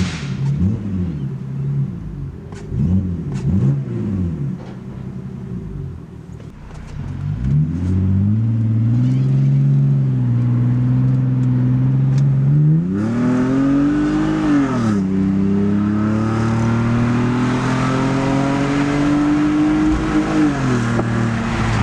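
BMW E46 Touring engine and muffler-delete stainless exhaust heard from inside the cabin. A few quick revs while standing, then the car pulls away and accelerates: the engine note rises, drops at an upshift about fifteen seconds in, climbs steadily again and eases off near the end.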